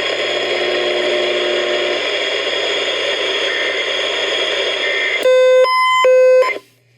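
Steady radio hiss and static on a relayed weather-warning broadcast. About five seconds in come three short, loud, buzzy electronic tone bursts in quick succession, typical of the Emergency Alert System end-of-message data bursts. Then the audio cuts off abruptly.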